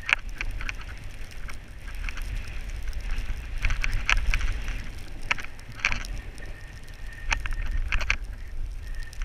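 Wind rumbling on the microphone of a camera moving down a snowy ski run, with scattered sharp scraping crackles from sliding over the snow.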